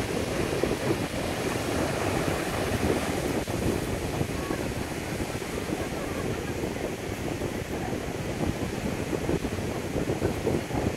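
Sea surf breaking on a sandy beach: a steady rushing wash of waves, with wind rumbling on the microphone.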